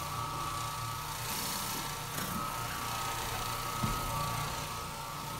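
Oreck Orbiter orbital floor machine running steadily, its red cleaning pad scrubbing a hardwood floor: a constant motor hum with a steady high whine.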